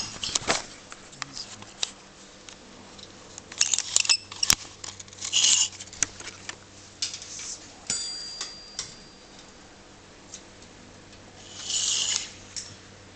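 Scattered clicks, clinks and short rattles of metal tools and measuring gear being handled, with a brief metallic ring about eight seconds in.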